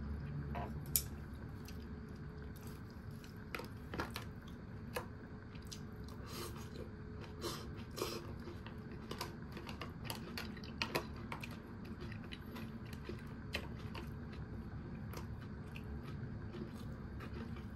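Close-up eating sounds: someone chewing and biting food, with irregular crisp clicks and crunches.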